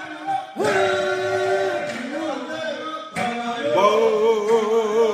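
A man singing: one sung phrase starting about half a second in, then a long held note with a wavering vibrato from about three seconds in.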